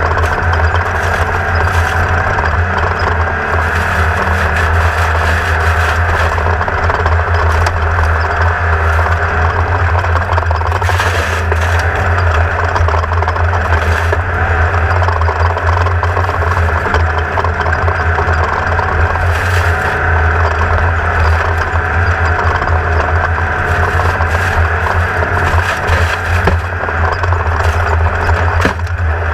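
Onboard sound of a Class 1600 off-road race buggy running at speed, its air-cooled 1600 cc Volkswagen engine holding a steady note under load. Rattles, scrapes and clicks from the chassis come through throughout.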